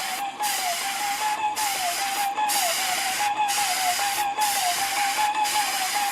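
Sprayer applying dampproofing coating to a concrete foundation wall: a steady, loud hiss that drops out briefly about once a second, with a wavering mid-pitched motor whine under it.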